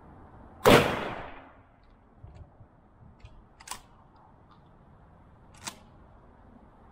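A 12-gauge pump-action shotgun firing an armor-piercing incendiary shell once, about a second in: a single loud shot with a short fading tail. Two fainter sharp clicks follow a few seconds later.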